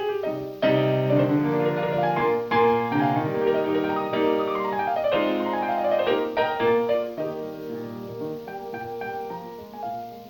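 Piano music with quick descending runs, louder from about half a second in and softer in the last few seconds.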